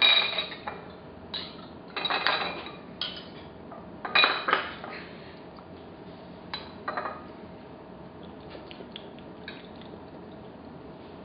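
Cutlery clinking and scraping against dishes in several short clusters over the first seven seconds, then a few lighter taps.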